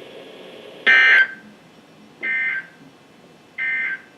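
Three short, buzzy bursts of Specific Area Message Encoding (SAME) digital data over faint radio hiss, about 1.4 s apart, the first loudest. This is the Emergency Alert System (EAS) end-of-message code, sent three times to close a NOAA Weather Radio warning broadcast.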